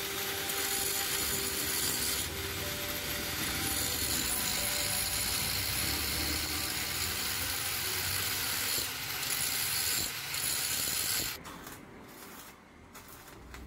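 Steady mechanical noise from a workshop tool working on the tractor, running without a break and cutting off suddenly about eleven seconds in.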